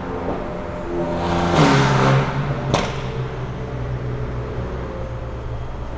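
BMW F82 M4 twin-turbo straight-six running through a Fi Exhaust valved catback and catless downpipe, heard in a tunnel from a following car. About a second and a half in it gets louder and its note drops, with one sharp crack just before the three-second mark. It then settles into a steady, lower drone.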